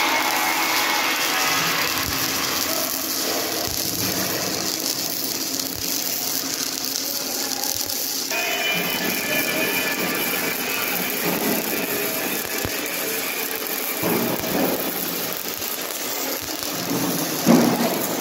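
Electric arc welding on a steel beam frame: a steady crackling, sizzling hiss from the arc, with a few knocks near the end.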